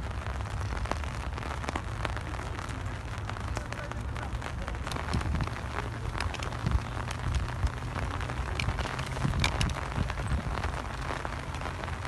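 Rain falling: an even hiss with many scattered sharp drop ticks over a steady low rumble.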